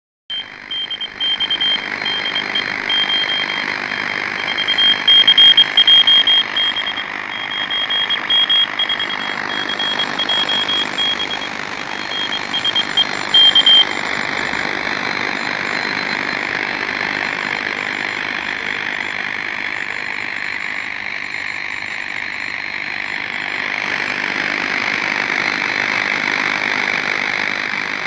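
Direct-conversion shortwave receiver hissing with band noise, with a high, steady Morse-code tone keyed on and off over it: the CW signal of amateur station 9M4CJB. The tone stops about halfway through, leaving only the receiver hiss, which swells and fades slowly.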